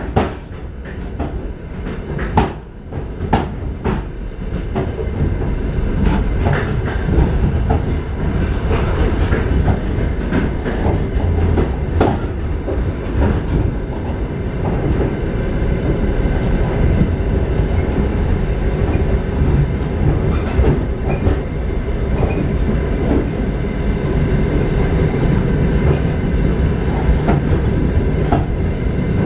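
Inside a moving passenger train carriage: the steady rumble of the wheels on the track with the clickety-clack of rail joints. The clicks are sharpest in the first few seconds, and the rumble grows a little louder after that.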